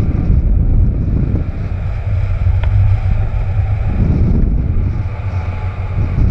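Wind rushing over a camera microphone mounted on a hang glider in flight: a loud, steady, low rumbling rush of airflow.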